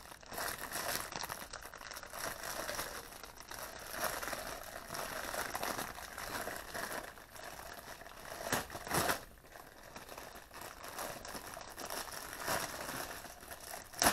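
Clear plastic packaging bag crinkling and rustling as it is handled, in irregular crackles, louder a little past halfway, with one sharp snap near the end.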